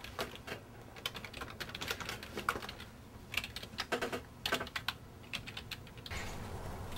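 Typing on a computer keyboard: irregular bursts of key clicks. A steady background noise comes up near the end.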